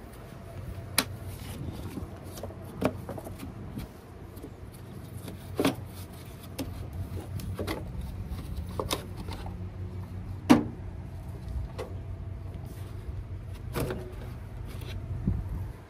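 Scattered clinks and knocks of tools and parts being handled during an APU oil and filter service, about nine sharp hits with the loudest about ten and a half seconds in, over a steady low hum.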